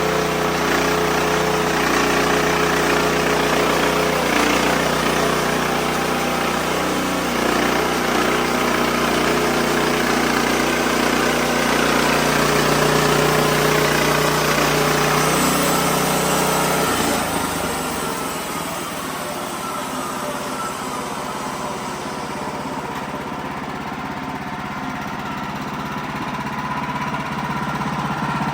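Wood-Mizer LX55 portable band sawmill running as the blade cuts a white oak log: a steady engine note under the noise of the cut. A little over halfway through, the sound drops and becomes lighter and thinner, then builds again near the end.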